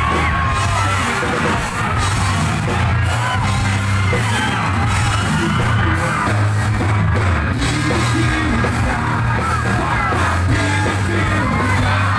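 Live rock band playing through a loud PA, a heavy bass line under it, with singing and yelling voices over the music.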